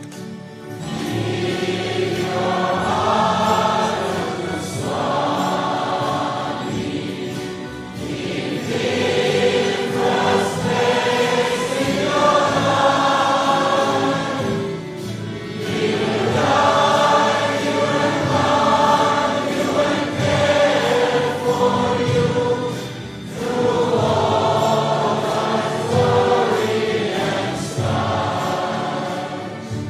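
Devotional song: voices singing in phrases a few seconds long over instrumental backing, with short breaks between the lines.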